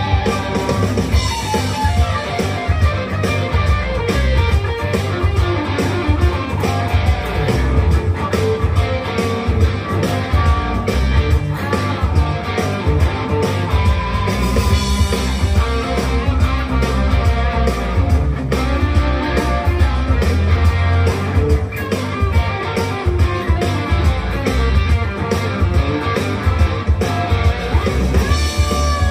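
Firefly FFLG SG-copy electric guitar played through an amplifier: a continuous tune of picked notes and chords.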